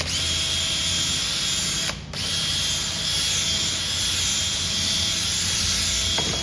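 Power drill running under load, drilling out a large rivet that holds a bracket on a car bumper. It runs steadily with a high whine, stops for a moment about two seconds in, then runs again until the rivet is through.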